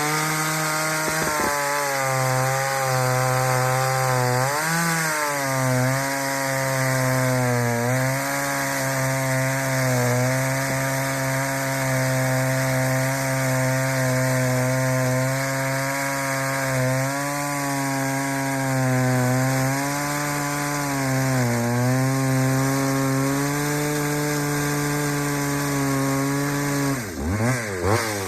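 Ported Pioneer two-stroke chainsaw at full throttle cutting through wood, its engine pitch dipping and recovering as the chain loads up in the cut. Near the end the engine speed swings sharply down and up, then falls away.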